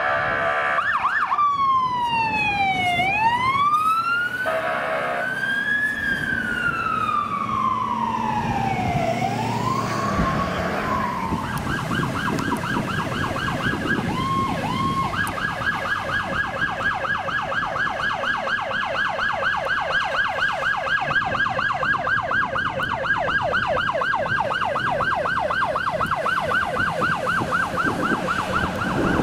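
Fire truck electronic siren: after a short horn blast at the start, a slow wail rises and falls twice, then about ten seconds in it switches to a fast yelp that runs on, with a few quick chirps a little later. A low engine rumble sits underneath.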